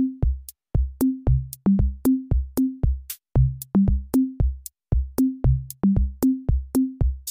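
Background electronic music: a drum-machine beat of short pitched bass-drum hits with sharp clicks, about three a second, stepping between a few low notes.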